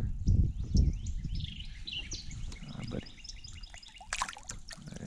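Songbirds chirping and calling throughout. Low rumbling knocks come in the first second, and a short splash about four seconds in as a small bass is let back into the river by hand.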